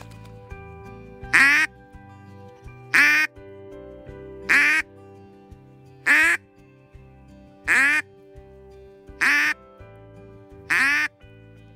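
A hunter's hand-held duck call blown in seven short, loud quacks, evenly spaced about a second and a half apart, over background music.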